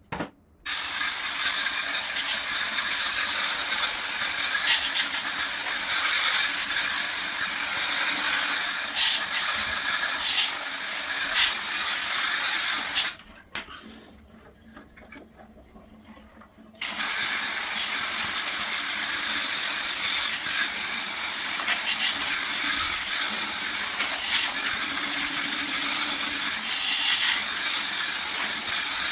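Pressurised spray jet hissing steadily in two long runs, broken by a pause of about four seconds in the middle, as in spray-washing an air-conditioner's coil during a chemical overhaul.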